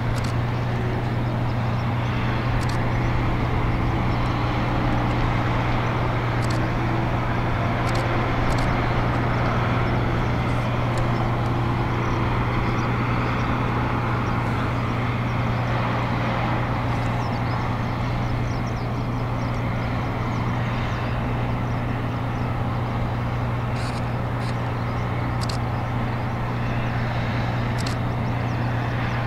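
Heavy diesel engine running steadily with a deep, even drone that does not change pitch. A few faint sharp clicks sound over it.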